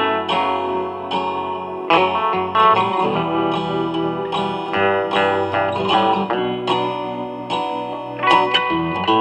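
Electric guitar being played: a steady run of picked notes and chords that ring on into one another.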